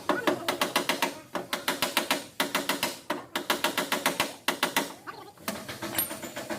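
Rapid light tapping on the car's sheet-metal panel, in bursts of about a second at roughly eight or nine taps a second with short pauses between. It is typical of paintless dent repair work, tapping down the high spots around a dent.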